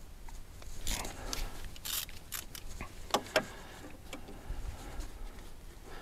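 Ratchet with a long 6 mm Allen bit loosening a diesel injector hold-down bolt, then turned by hand: irregular light metal clicks and ticks, thickest in the first half.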